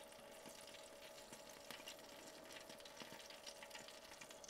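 Near silence, with the faint crackling sizzle of hot fat and drippings in the roasting pan under a freshly roasted whole chicken, over a faint steady hum.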